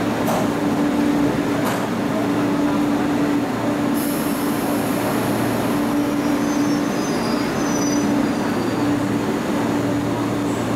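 Electric commuter train at a station platform, running with a steady hum and rumble. About four seconds in a high hiss starts, with faint high-pitched squeals.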